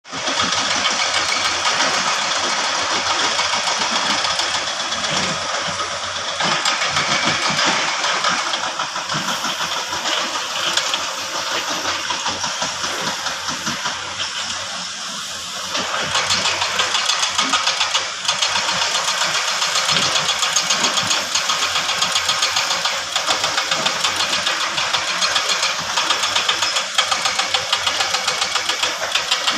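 Heavy diesel engine of construction machinery running with a rapid knocking pulse, easing off a little around the middle and then louder again from about halfway through.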